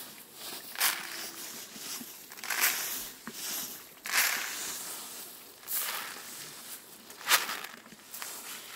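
Dried corn kernels being scooped up by hand and swept across a plastic tarp, rustling and pattering in about six short bursts.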